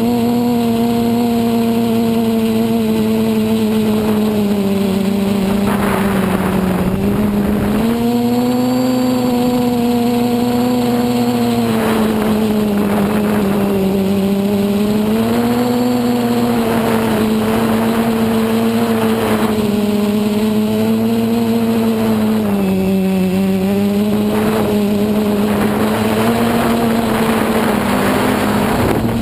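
Quadcopter's brushless motors and propellers humming steadily in flight, the pitch sagging and rising again every few seconds as the throttle changes. Several spells of rushing air noise come and go.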